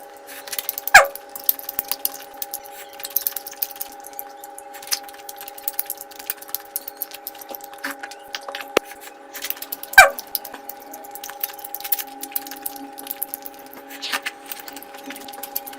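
Close-miked eating: a rapid run of small wet clicks and smacks from chewing curry, with two louder sharp sucks or slurps about nine seconds apart, over a steady low hum.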